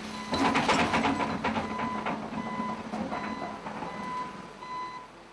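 Army bulldozer running, with a reversing alarm's steady high tone over the engine and a run of metal clanking in the first couple of seconds.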